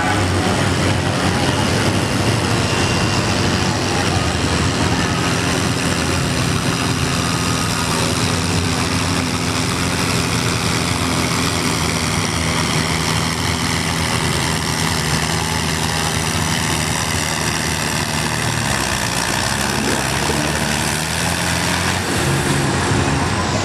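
Heavy farm tractor engines running steadily at idle. About nineteen seconds in the engine pitch shifts and wavers, then settles again as a tractor moves up to the sled.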